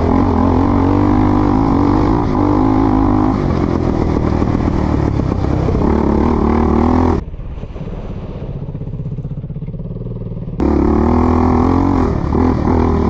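Sport ATV (quad) engine running under throttle on a dirt trail, its pitch wavering with the throttle. A little past the middle it eases off to a quieter, lower running for about three seconds, then picks up again.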